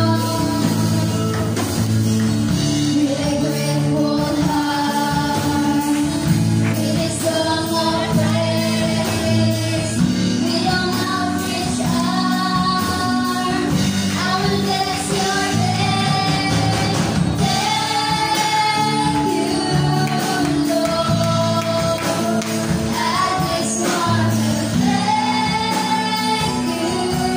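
Children's choir singing a gospel song through microphones, a girl's voice leading, over instrumental accompaniment.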